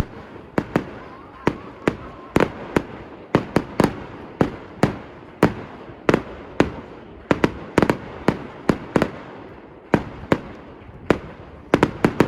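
Aerial fireworks bursting in a rapid, irregular barrage of sharp bangs, about two or three a second, each with a short echoing tail.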